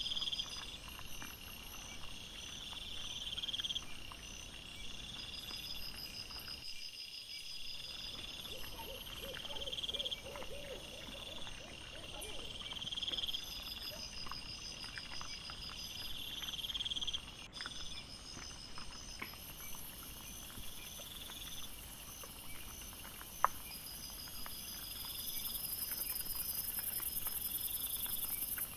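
Night insects, crickets, trilling in repeated pulsing bursts, played sped up with the trail-camera footage. A single sharp click comes about two-thirds of the way through, and a steady high hiss comes in near the end.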